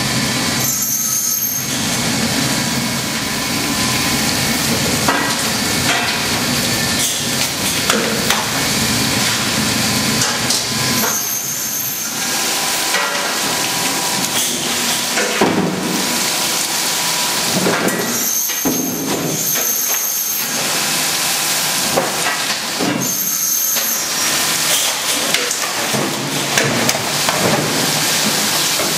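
Crab processing plant noise: a loud, steady hiss with clattering knocks scattered through it, and a high thin whine that comes and goes several times.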